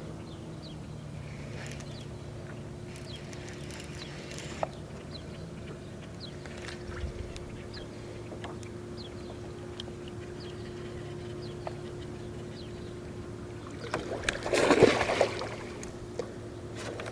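Steady low hum of a boat motor, with small birds chirping now and then. A short, loud, rustling clatter comes about fourteen seconds in.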